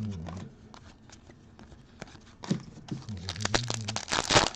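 Foil wrapper of a trading-card pack being handled with light crinkles and clicks, then torn open with a loud ripping crinkle just before the end.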